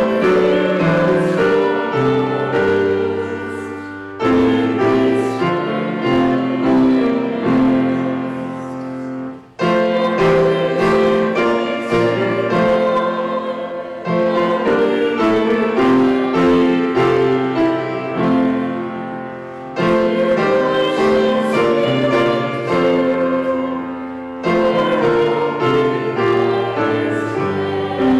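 Grand piano accompanying voices singing a hymn, in phrases of about five seconds with short breaks between them.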